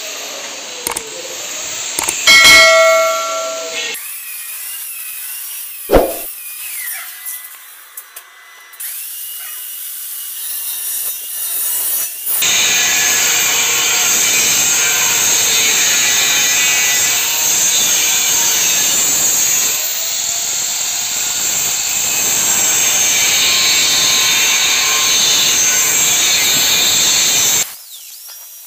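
Handheld angle grinder cutting through steel square pipe: a steady, loud, high grinding hiss that runs for about fifteen seconds and stops abruptly near the end. Before it come a few sharp clicks and a brief electronic jingle.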